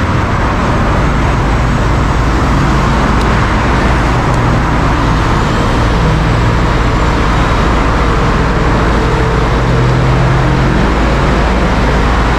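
Heavy rotator wrecker's diesel engine running steadily close by, its low drone wavering slightly in pitch, over a constant rush of road noise.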